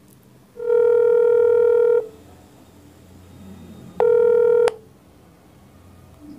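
Ringback tone of an outgoing call from a phone app: one steady tone lasting about a second and a half, a pause of about two seconds, then the tone starts again and is cut off after half a second with a click.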